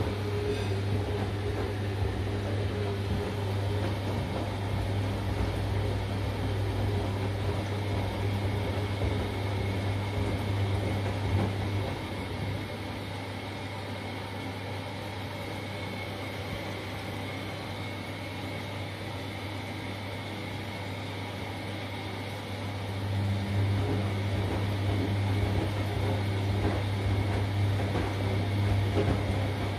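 Sangiorgio S5510I front-loading washing machine tumbling a load of sheets in water, with a steady motor hum and the sound of the turning drum. The sound drops for about ten seconds midway, when the drum pauses between turns, then picks up again as it restarts.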